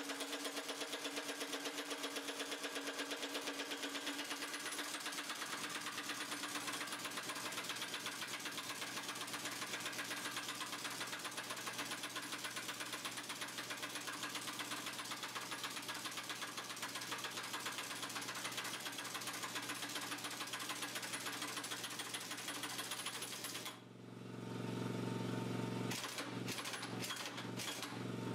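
Large impact wrench hammering steadily and rapidly for over twenty seconds on the very tight piston retaining nut of a hydraulic cylinder rod. It stops about four seconds before the end, and a lower steady hum with a few clicks follows.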